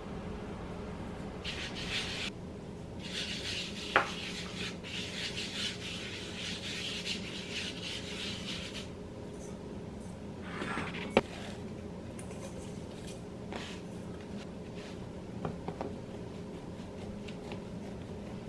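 A hand rubbing and spreading flour across a bamboo cutting board, a dry scraping sound in spells. Two sharp knocks, about four and eleven seconds in, are the loudest sounds. A steady low hum runs underneath.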